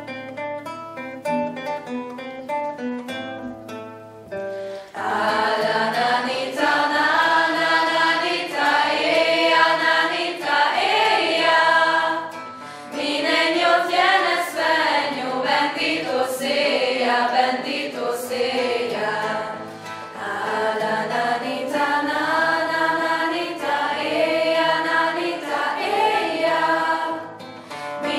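Nylon-string classical guitar plays plucked notes alone, then about five seconds in a mixed youth choir comes in singing, with the guitar accompanying. The singing goes in phrases, with short pauses between them about halfway through and near the end.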